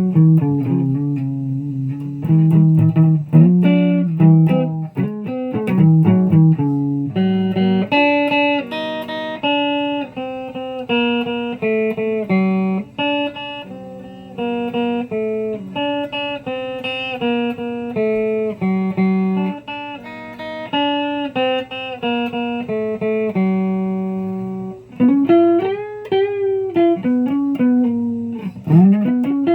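Guitar playing a picked melodic line of single notes. Near the end several notes bend up and down in pitch.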